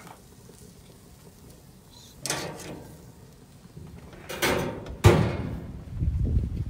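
Metal grill tongs scraping and clanking against a grill grate in a few short bursts, the loudest a sharp clank about five seconds in, followed by a low rumble near the end.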